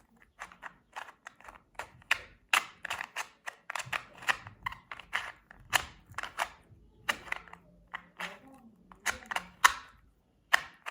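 Plastic 2x2 Rubik's cube being twisted to scramble it: a rapid, irregular run of sharp clicks, a few a second, as its layers snap round.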